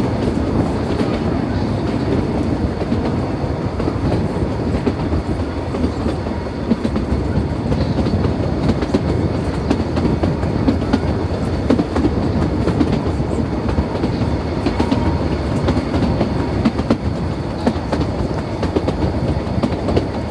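Narrow-gauge toy train carriage running along the track, heard from on board: a steady rumble of wheels on rail, with continual irregular clatter and rattling.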